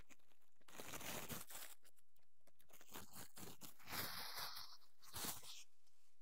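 Leaves and twigs rustling and crunching in several irregular bursts, the loudest about four seconds in.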